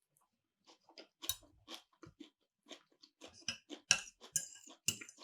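Close-miked chewing of food: a quiet, irregular run of short wet mouth clicks and chews that starts just under a second in and grows busier in the second half.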